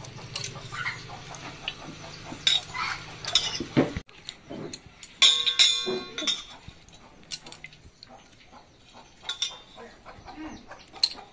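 Stainless steel bowls clinking and knocking, with water splashing as curry leaves are lifted out of a bowl of rinsing water.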